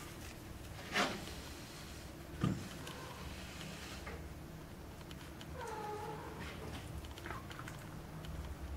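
Kitten meowing: one drawn-out meow a little past halfway, slightly falling in pitch, and a short one about a second later. Two short bumps come in the first few seconds, the first the loudest sound.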